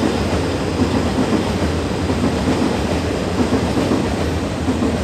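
Train crossing the railway bridge overhead: a loud, steady rumble of the cars on the track that starts to ease off near the end.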